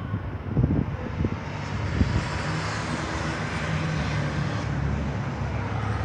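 Steady drone of engines that builds over the first couple of seconds and then holds level, with a low hum underneath.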